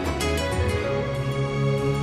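Instrumental background music with held notes.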